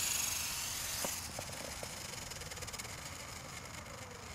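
Modified Esky Honey Bee fixed-pitch electric RC helicopter (Slo-Max 300 main motor, GWS direct-drive tail motor) landing. A high motor whine fades as it sets down, with a light knock about a second in. The rotor then spins down with a fine, fast ticking, quieter than the whine.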